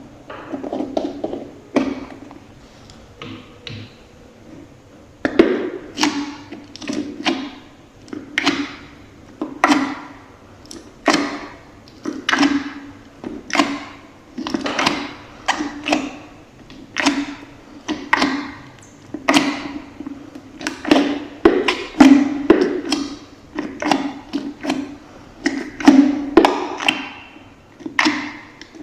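Slime being squeezed and worked by hand, with a squelch or pop about once a second. The sounds are softer and sparser for the first few seconds.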